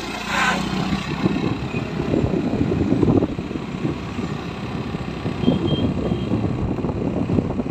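Motorcycle riding along a road: the engine running under uneven wind rush on the microphone.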